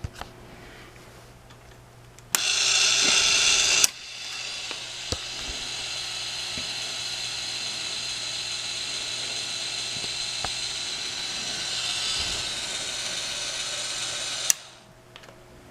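Electric actuator of a DIY standup wheelchair running to raise the user to standing: its geared motor starts about two seconds in, louder for the first second and a half, then runs steadily for about ten seconds and cuts off suddenly.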